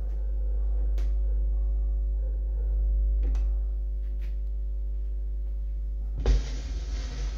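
Portable suitcase record player humming steadily through its built-in speaker, with a few faint clicks. About six seconds in the stylus lands on the vinyl record with a thump, and the crackle of surface noise from the lead-in groove starts.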